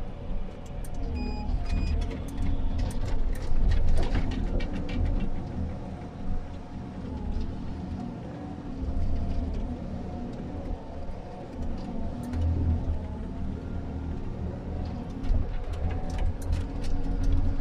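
Komatsu 931.1 harvester heard from inside its cab: diesel engine running under load with hydraulic whine rising and falling as the crane and head move. Scattered sharp clicks and knocks come in two clusters, in the first few seconds and again near the end.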